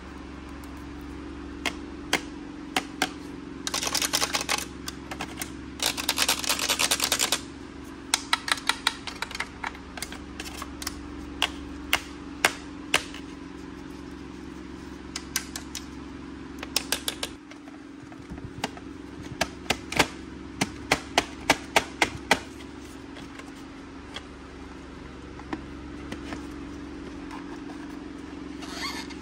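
ASMR tapping: a thin stick tapped on a plastic Polly Pocket unicorn toy in quick runs of sharp clicks. There are two spells of fast scratching about four and six seconds in, and the taps thin out over the last several seconds.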